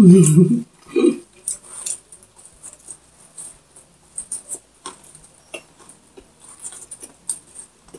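Close-miked biting and chewing of crispy fried pork: scattered sharp crunches and crackles, irregular and unhurried. A short hum of voice comes at the very start.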